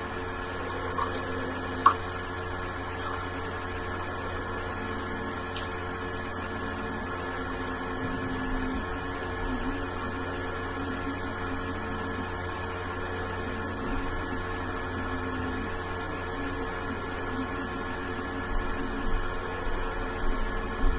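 Steady electrical hum made of several held tones, with one sharp click about two seconds in and a few soft, uneven bumps near the end.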